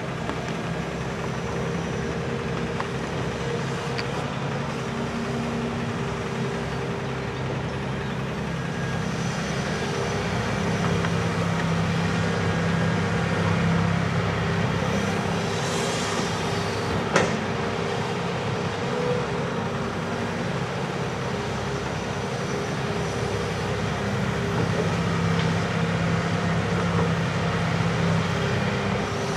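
Hitachi Zaxis 280 LCN hydraulic excavator's diesel engine running steadily, its note strengthening under load twice as it works. One sharp knock a little past halfway.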